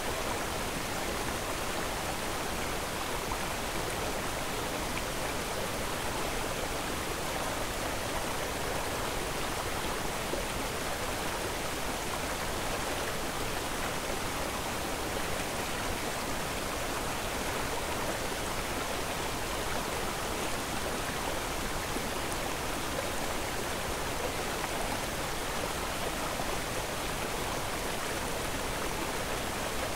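A steady, even rushing noise that never changes, with no distinct sounds within it.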